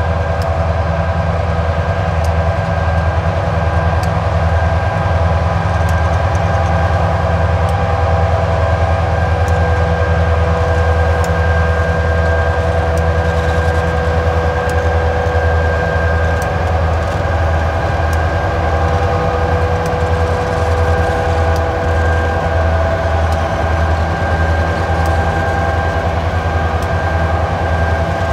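TasRail diesel-electric freight locomotives running as they roll slowly in with a coal train and come to a stop: a low, pulsing engine rumble with a steady high whine over it.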